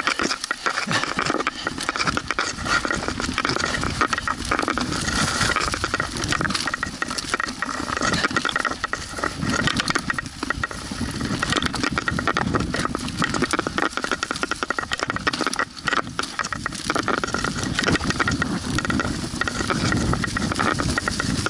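Mountain bike descending a dry forest singletrack: tyres rolling over leaf litter, dirt and roots, with a continuous clatter of rattling from the bike over the bumps.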